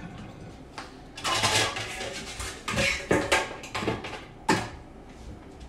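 Metal pots and pans clattering: a string of clanks and knocks as a metal colander is pulled out from among other cookware.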